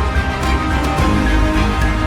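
Background music with a strong bass and a steady beat.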